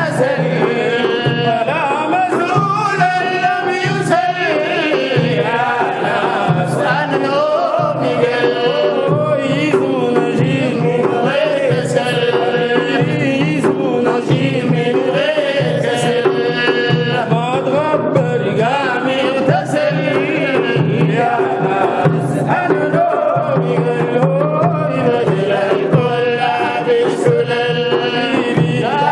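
Sufi madih (praise song) music: a melody over a steady, evenly repeating hand-drum beat, with the voices carrying on the tune without clear words.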